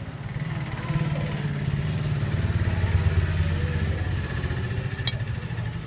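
A motor vehicle engine, likely a motorcycle, running past on a nearby road: a low rumble that swells to its loudest around the middle and then fades. One sharp click about five seconds in.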